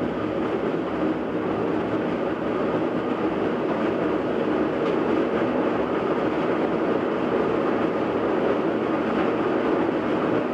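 GE top-load washing machine spinning up on its spin cycle, a loud, rough, steady rumble that grows slightly louder, like a freight train. The noise comes from a failed bearing, which the owner can't yet place between the tub, transmission and motor bearings.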